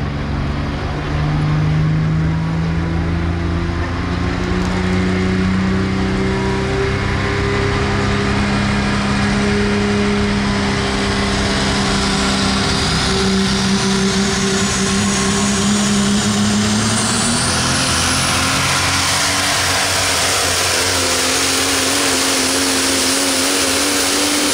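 Super stock diesel pulling truck running at full throttle down the track, its engine pitch climbing slowly for most of the pull, then dipping and climbing again near the end, with a high whistle building in the second half.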